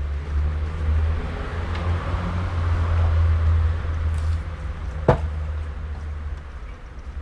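Low rumble of street traffic, swelling as a vehicle passes about two to four seconds in, with one sharp click about five seconds in.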